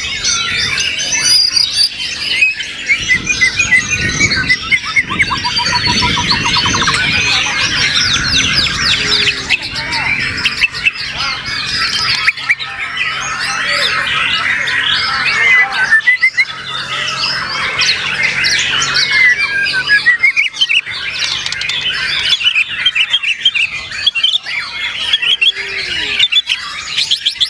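White-rumped shama singing without pause: a fast, varied stream of whistled phrases, rapid trills and harsh chattering notes.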